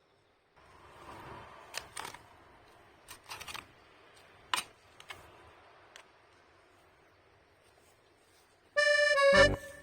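A handful of sharp clicks and knocks over a faint hiss, then accordion music starting loudly near the end.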